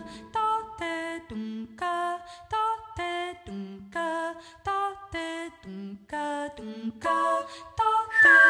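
Wordless a cappella female vocals: short, separate sung notes in quick succession, two or three a second, with layered vocal lines at times sounding together. Right at the end a steady, high whistled note comes in.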